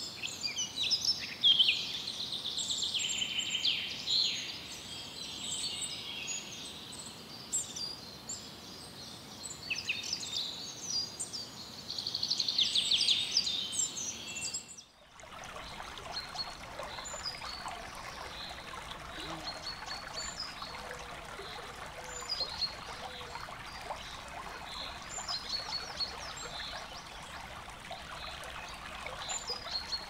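Songbirds singing in a dense chorus of overlapping chirps and trills. About halfway through it cuts to a shallow stream flowing steadily, with a few faint bird calls over the water.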